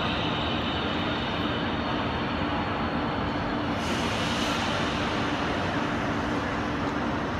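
Steady ambient din of a large railway station hall: a dense wash of noise with a low, constant hum through it. The hiss turns brighter about halfway through.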